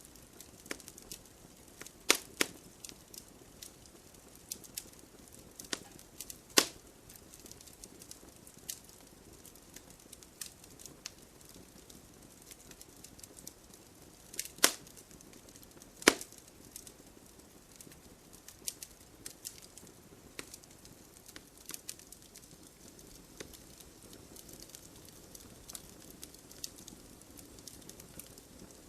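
Wood fire burning, firewood crackling and popping: a soft steady hiss with irregular small ticks and a few loud sharp snaps.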